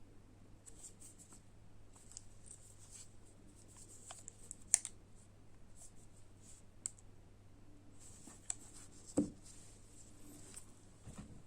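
Hands handling a small plastic USB-C wall charger and its packaging: scattered light clicks and taps, one sharper click about five seconds in and a soft thump about nine seconds in.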